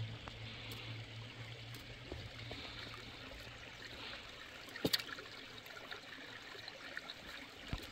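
Running water trickling steadily, like a small stream. A low hum dies away in the first second, and a sharp click comes about five seconds in.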